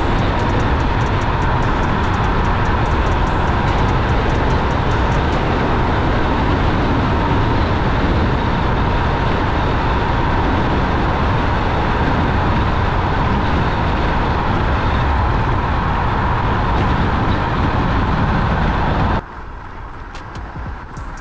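Heavy, steady wind rush on the microphone while riding a Nami electric scooter at about 48 mph, with a faint steady whine underneath. About nineteen seconds in, the sound cuts abruptly to a quieter, thinner wind noise.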